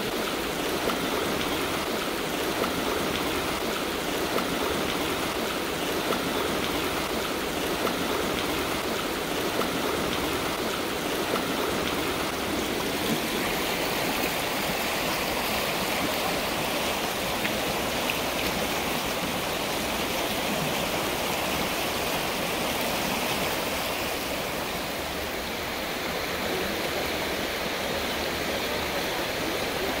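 Clear mountain river water rushing steadily, a continuous even rush that eases slightly near the end.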